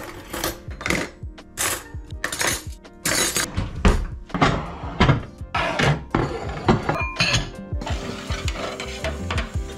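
Background music with a steady beat over the clinking and clatter of dishes and cutlery being put away. About eight seconds in, a steady hiss takes over.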